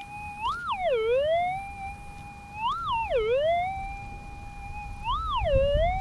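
Minelab GPX 6000 pulse-induction metal detector's steady threshold tone, broken three times about two and a half seconds apart by a target signal: the pitch jumps up, dips low, then slides back to the threshold. Each one is the detector responding as the coil is swept over a buried metal target.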